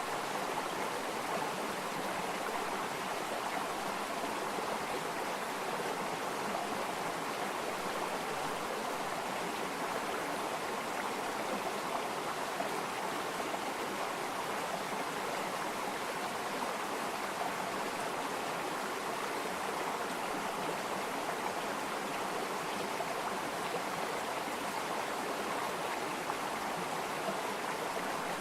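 Water flowing in a stream, a steady rushing and babbling with no breaks.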